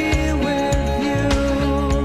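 Background music: a song with a steady drum beat, bass and a gliding melody line.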